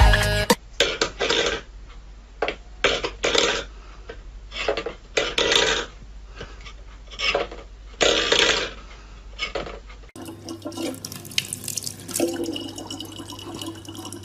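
A cat pawing a stainless steel bowl across a wooden floor, making a string of short, irregular scrapes and rattles. About ten seconds in, this gives way to a tap running steadily into a plastic bottle over a low hum.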